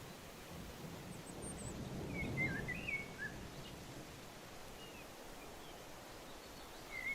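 A songbird singing a short warbled phrase about two seconds in, with a few faint high chirps just before it and another phrase starting near the end, over a steady low rumble of outdoor background noise.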